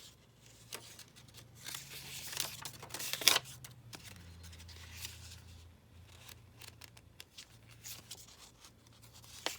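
Paper rustling as small sheets of paper ephemera are handled and pulled apart, with a sharp tap about three seconds in.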